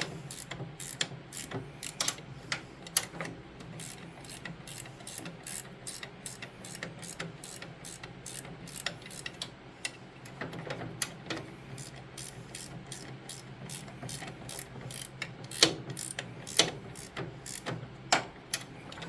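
Ratchet wrench clicking in short runs of strokes, about two to three clicks a second, as the bolts of a new snowblower friction wheel are snugged down a little at a time.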